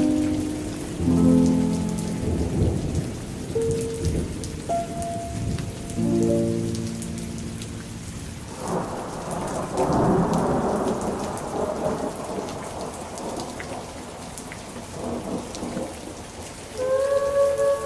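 Steady rain, with a rolling rumble of thunder that swells about nine seconds in and dies away over a few seconds. Slow sustained music notes fade out in the first seconds, and new held notes come in near the end.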